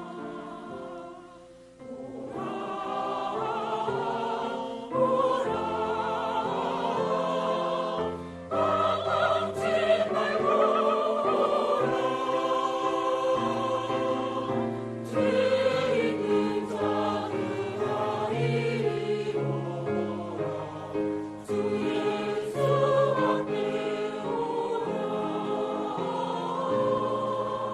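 Church choir singing a hymn in parts with sustained low accompaniment, pausing briefly between phrases about two seconds in.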